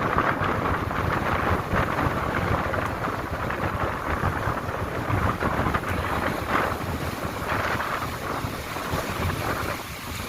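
Sea waves breaking and washing on the beach, with wind buffeting the microphone in low rumbling gusts.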